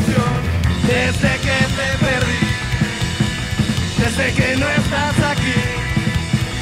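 Live rock band playing an instrumental passage with no singing: upright double bass, a drum kit and electric guitars.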